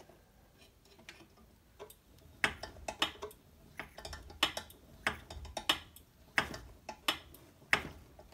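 Sharp mechanical ticking from the altimeter test bench, about three clicks every two seconds, starting about two seconds in.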